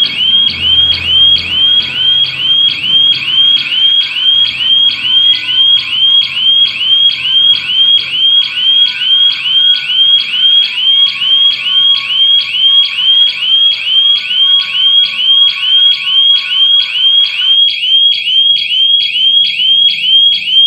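Electronic siren of a home-built GSM burglar alarm going off, repeating quick rising sweeps about two to three times a second. It sounds because the armed system has detected a security breach, a shutter being forced open.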